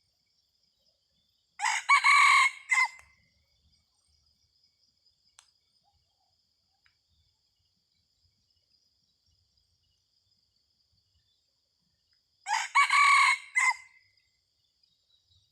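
Red junglefowl rooster crowing twice, about ten seconds apart, each a short crow of under a second and a half. A thin, steady, high insect tone runs behind it.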